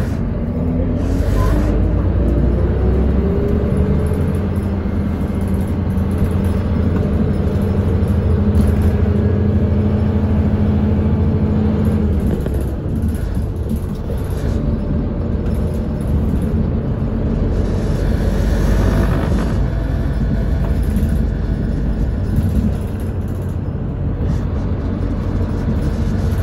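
Route bus's diesel engine and cabin noise heard from inside the bus. The engine pitch rises over the first few seconds as the bus speeds up, holds steady for several seconds, then eases off about halfway through.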